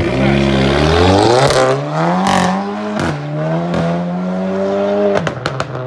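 Volkswagen Golf hatchback accelerating hard away. The engine note climbs for about two seconds, drops at gear changes and then holds steady, with a few sharp cracks near the end.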